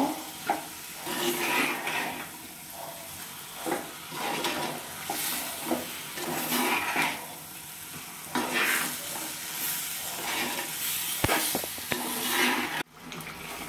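Flat steel spatula scraping and stirring chicken pieces through thick masala in a clay pot (mann chatti), in irregular strokes about once a second, while the chicken and masala fry.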